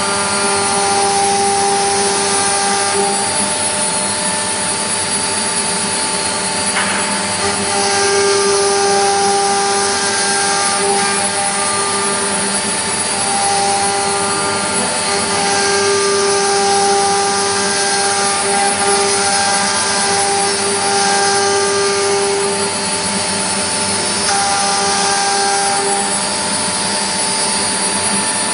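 A four-axis CNC milling machine running: a steady spindle whir and hum, with stepper-motor whines that start and stop every second or few as the axes move. There is one brief knock about seven seconds in.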